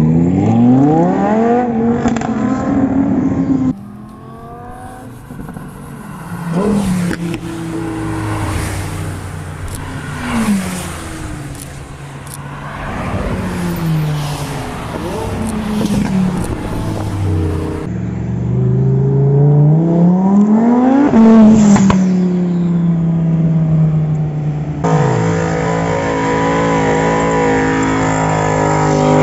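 Loud supercar engines and exhausts across several short clips, revving hard with the pitch climbing and dropping through the gears as the cars accelerate away or pass by. One car goes past about three quarters of the way through, its pitch rising and then falling.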